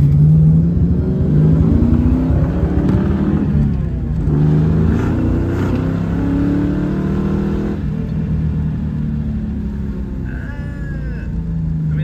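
A 1995 Mustang GT's 5.0 L (302) V8 pulling under acceleration, heard from inside the cabin. Its pitch climbs, falls back about four seconds in, climbs again and drops near eight seconds, as at gear changes. The car is being tested for a misfire and backfiring in the mid RPM range.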